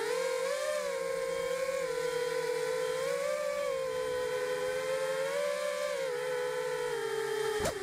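FPV quadcopter's brushless motors whining steadily, the pitch wavering gently up and down with the throttle, then spinning down abruptly near the end.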